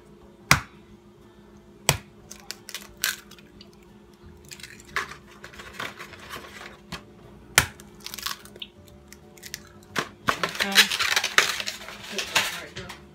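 Two eggs taken from a foam egg carton and cracked into a mixing bowl: a few separate sharp taps and clicks, then a busier stretch of handling and rustling near the end.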